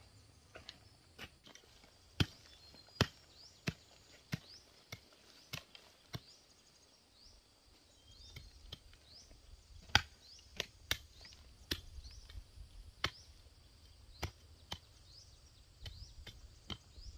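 Repeated sharp chopping strikes of a hand tool clearing ground or brush, about one to two a second, pausing briefly midway. Faint short, rising high chirps repeat in the background.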